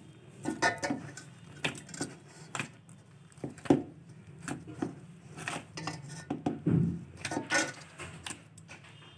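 Hands kneading rice-flour dough in a steel bowl: irregular clinks and knocks as the hands and glass bangles strike the bowl's metal side.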